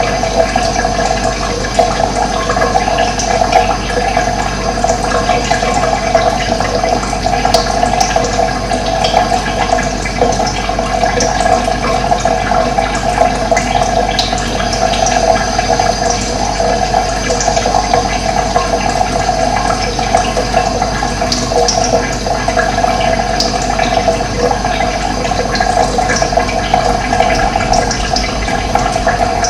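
Steady rush of running water, with short bird calls here and there above it.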